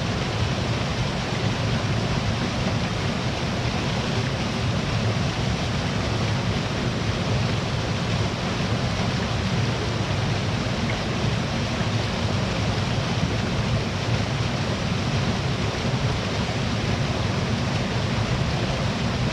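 Small waterfall and stream water falling and rushing, a steady even roar.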